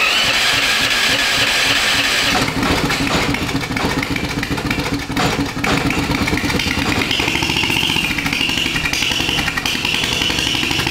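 Turbocharged, fuel-injected Predator 420cc single-cylinder engine running steadily just after catching. A steady high whine joins in about seven seconds in.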